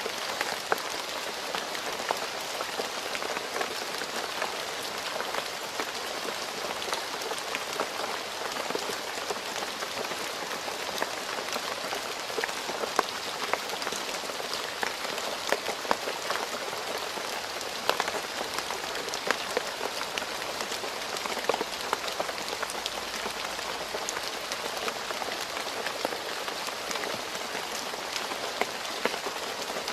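Steady rain falling on a road surface, a dense even hiss with many individual drops splashing and ticking.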